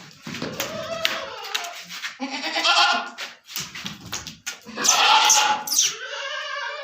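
Goats bleating, several long bleats one after another.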